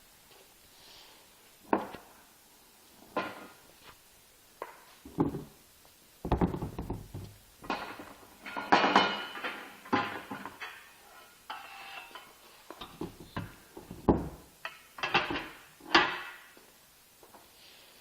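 Welding-cart components being taken out of their shipping box and set down: irregular knocks and clattering, loudest a little past halfway and again near the end.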